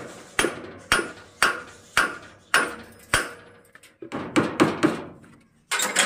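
Hammer blows on the metal of a baler gearbox being dismantled, knocking the cover plate or shaft loose: six sharp ringing strikes about two a second, then a quicker run of lighter taps after about four seconds.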